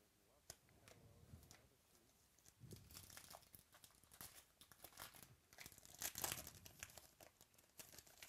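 A sealed 2017 Topps Gold Label baseball card pack being torn open by hand, its wrapper crinkling and tearing in a faint, irregular run of crackles. It is loudest about six seconds in.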